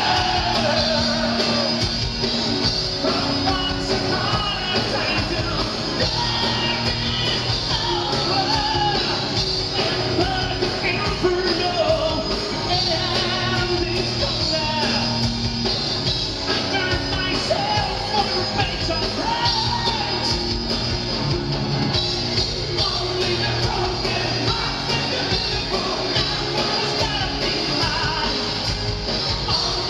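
Live metal band playing a song: lead vocals over drums and electric guitars, loud and steady, recorded from within the audience in a concert hall.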